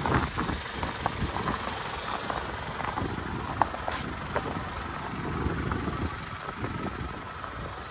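Blizzard wind gusting against the microphone, with a vehicle engine idling close by.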